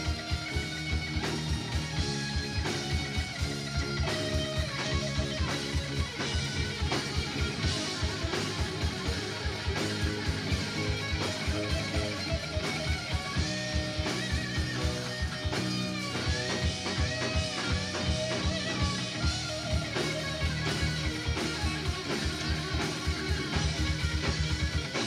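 Live rock band playing an instrumental passage: an electric guitar lead line with bent notes over a steady drum kit beat and bass.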